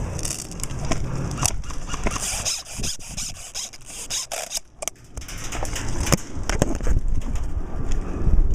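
Airsoft guns firing scattered single shots, sharp clicks a second or more apart, over a low rumble and rustle.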